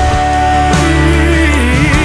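Music from a Portuguese-language worship song. A held melody note gives way about halfway through to a wavering melody line with vibrato, over a steady low bass.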